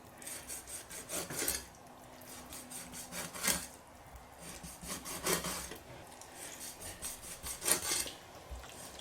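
Kitchen knife scoring a carp on a chopping board: a series of short scraping cuts through the skin and flesh, several in the first second and a half, then single strokes every two seconds or so.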